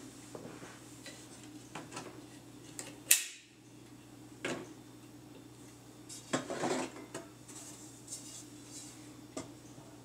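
Clicks and knocks from handling an Illustravox Standard Jr. tube-amp record player, its metal tone arm being lifted and swung out from its rest, over a steady hum from the amplifier. A sharp click about three seconds in is the loudest sound, and a cluster of knocks comes about two thirds of the way through.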